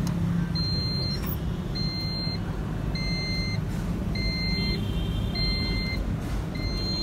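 Toyota Coaster bus's diesel engine idling steadily, with a short electronic beep repeating about once a second over it.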